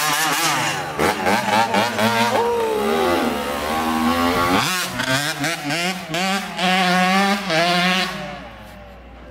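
Small two-stroke dirt bike engine revving hard as it pulls away, its pitch climbing and dropping again and again with the throttle. It fades away about eight seconds in as the bike rides off.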